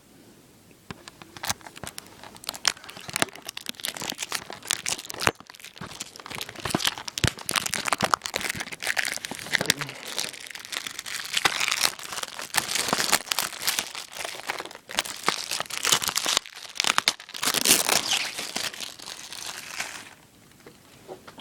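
Plastic shrink-wrap being torn and peeled off a new CD case, crinkling and crackling with many sharp clicks. It thickens in two stretches and stops shortly before the end.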